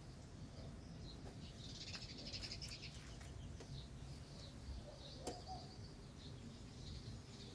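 Faint bird chirps over a low, steady background hum, with a single click about five seconds in.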